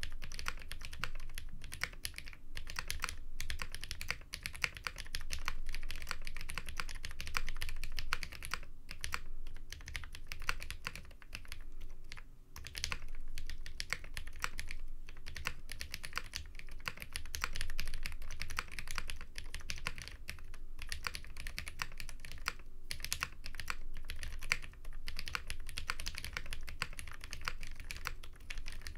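Continuous typing on a KBD8x MKII mechanical keyboard with Hyperglide switches: a dense, steady run of key clacks broken by a few brief pauses.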